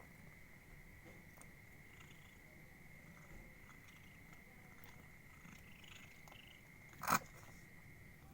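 Cat eating fried fish mixed with dry kibble: faint, scattered crunching clicks, with one sharp click about seven seconds in. A steady high tone runs underneath.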